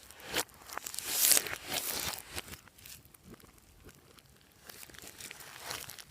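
Glossy slime being squished and mixed by hand, a sticky crackling and popping, loudest in the first two seconds and quieter after.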